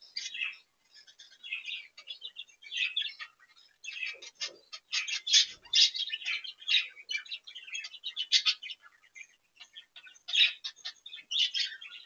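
Budgerigars chattering and warbling: a run of quick, high chirps in uneven bursts, busiest in the middle of the stretch.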